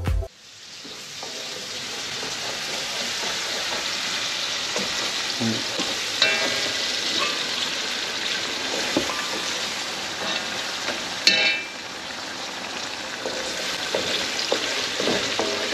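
Sliced onions and whole spices sizzling in hot oil in a large aluminium pot, stirred with a wooden spatula. The sizzle builds over the first couple of seconds and then holds steady, with a couple of sharper clinks partway through.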